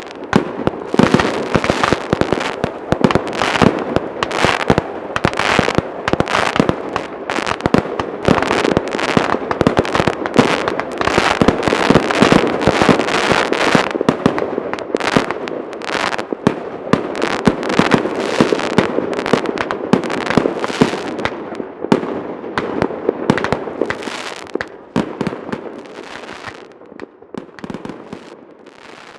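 Fireworks display: a dense, rapid barrage of bangs, thinning out and fading away over the last few seconds.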